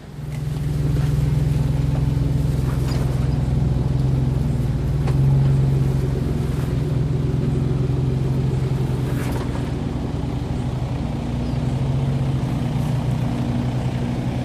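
A four-wheel-drive vehicle's engine running steadily at low revs, cutting in abruptly at the start and swelling slightly about five seconds in.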